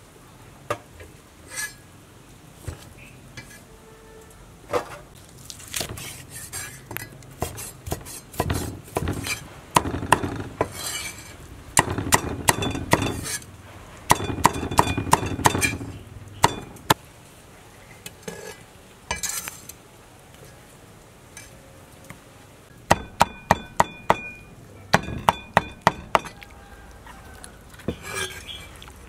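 Cleaver chopping braised pig head meat on a thick round wooden chopping block: a long series of sharp knocks, with a dense stretch of chopping and handling in the middle and quick runs of about four strokes a second near the end.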